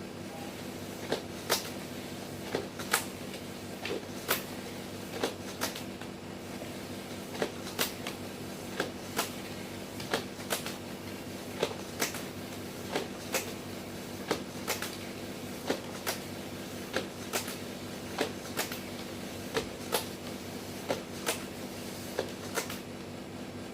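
Electric rail creasing and perforating machine running with a steady motor hum, punctuated by sharp clicks about once a second, sometimes in quick pairs.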